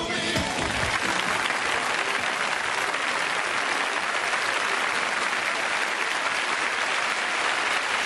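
Concert audience applauding steadily after a song ends, the last of the band's music dying away in the first moment.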